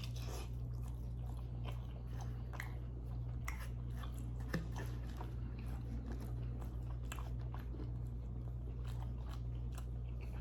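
Close-miked chewing of food, with crunchy bites and many small wet mouth clicks, over a steady low hum.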